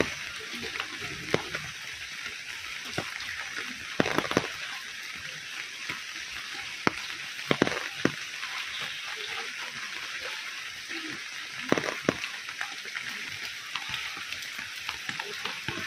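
Steady hiss of rain falling on the tarpaulin roof, leaves and wet ground, with a few sharp knocks and drips now and then.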